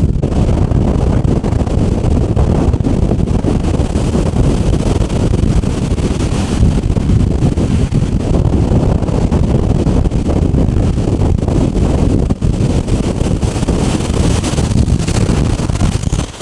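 Strong storm wind buffeting the microphone, a constant heavy noise that holds through, over the wash of surf against rocky shore.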